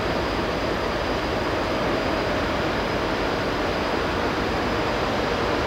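Pusher tug's diesel engines droning steadily as the tug and barge pass, over a steady rushing noise.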